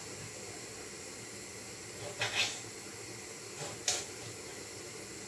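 Steady hiss of lidded pots cooking on a gas hob, broken by short, sharp clicks a little after two seconds and again near four seconds.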